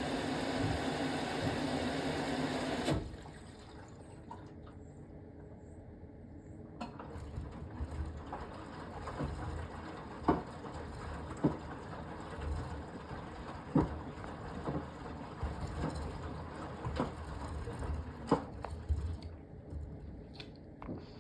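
Beko BM3WT3741W washing machine filling with water, the inlet rushing until it shuts off sharply about three seconds in. After a short lull the drum turns, with a low churning rumble and sharp knocks every second or so as the wet laundry tumbles, easing off near the end.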